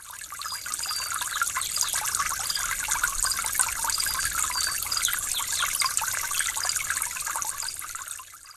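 Steady trickling, running-water noise with short high chirps over it. It fades in at the start and fades out near the end.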